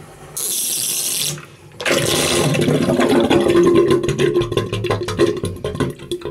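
Bathroom hand basin emptying fast through its freshly unblocked drain: a brief hissing rush, then loud gurgling and glugging as the last of the water and air are sucked down the plughole, dying away near the end. The quick, free draining shows the blockage is cleared.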